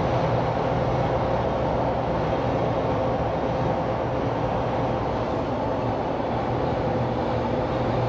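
Steady road and drivetrain noise inside the cabin of a 2021 Ford Bronco two-door hard top cruising at about 55 mph: a low hum under an even rush, reading about 65 to 72 dB(A) on a sound meter.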